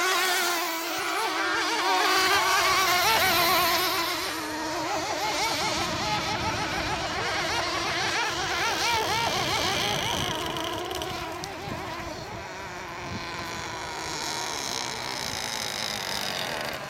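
Radio-controlled model racing hydroplanes running at speed, their small engines giving a high, buzzing whine. Several engines overlap, and the pitch wavers up and down as the boats pass and turn, loudest in the first few seconds and easing off later.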